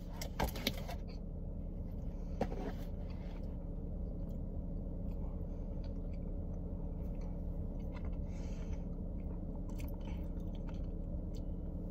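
A person chewing and biting a snack, with small crunches and mouth clicks, over a steady low hum in a car cabin.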